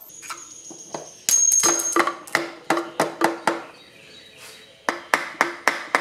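A screwdriver knocking and prying against a string trimmer's carburetor: sharp knocks about three a second, each with a short ringing note, in two runs with scraping between. The carburetor is stuck on its mount, which the mechanic puts down to the gasket having melded on.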